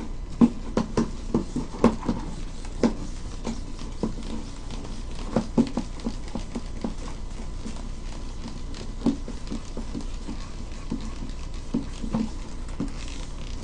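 Irregular soft knocks, taps and rubbing as a whiteboard is wiped clean by hand, the board bumping now and then; the louder knocks come in the first couple of seconds and again about five seconds in.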